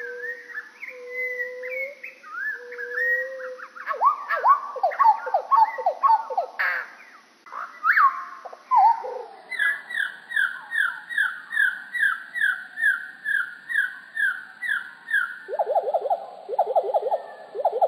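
Common nightingale song played back slowed about three to four times, so its notes are drawn out into low, sliding whistles. About halfway through it slows further and drops in pitch, with a string of repeated falling notes, then a lower, fast-repeated series near the end.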